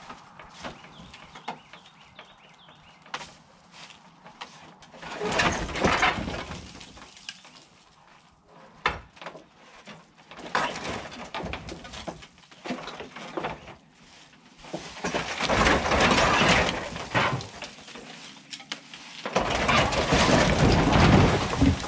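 Rusted corrugated tin roof section and old porch wood scraping and rattling as it is pushed over, in four loud bursts a few seconds apart.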